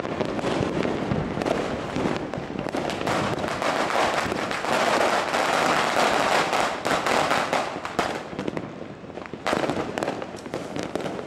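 Dense, continuous crackle of many firecrackers and fireworks going off at once. It is heaviest in the middle and thins out near the end, where a few separate sharp bangs stand out.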